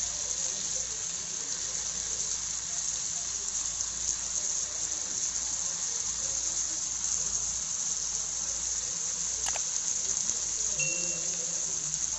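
Butter sizzling steadily on an iron dosa tawa as skewers of paneer and onion cubes fry in it. A single sharp click sounds late on.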